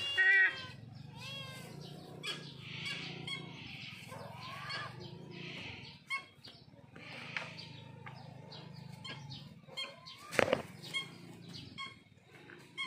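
Sea eagles flapping and scuffling, with a burst of short harsh calls right at the start and scattered wingbeats and knocks after. A single loud thump comes about ten seconds in.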